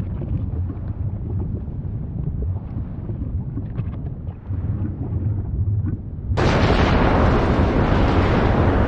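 Volcanic eruption rumbling low with faint scattered crackles. About six seconds in, a much louder, full rushing hiss starts abruptly.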